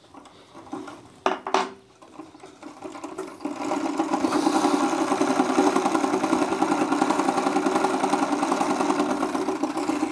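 Usha interlock (overlock) machine sewing a seam at a long stitch setting: a couple of clicks, then the motor speeds up about two seconds in and runs steadily with a rapid stitching chatter until it stops near the end.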